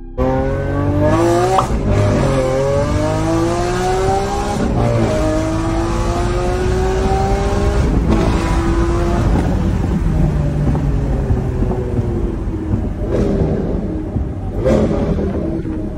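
Lamborghini Aventador's V12 engine accelerating hard, heard from inside the cabin. Its pitch climbs and drops sharply at each upshift, three times in the first eight seconds, then holds a steadier note, with quick rises and falls near the end.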